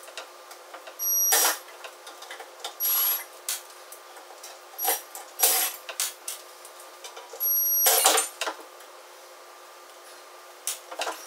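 Cordless drill/driver spinning in about five short bursts a second or two apart, each with a steady high whine, working screws on the grinder's motor housing. Clicks and knocks of handling fall between the bursts.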